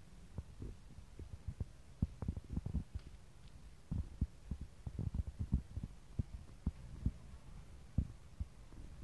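Soft, irregular low thumps and bumps as a kitten bites and wrestles a plush toy mouse on artificial turf, bunched in two flurries.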